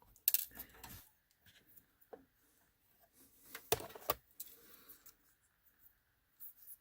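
Small screwdriver and tiny M.2 retaining screw being worked by hand inside a PC case: a few sharp metal clicks, three of them louder (just after the start and twice close together about four seconds in), between soft scraping.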